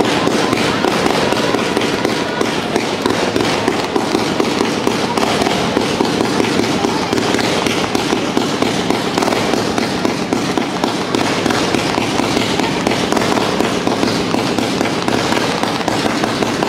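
Tezutsu hand-held tube fireworks spraying sparks: a loud, continuous, dense crackling rush.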